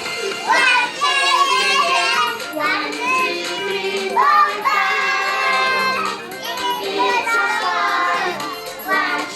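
Young children singing a song over backing music.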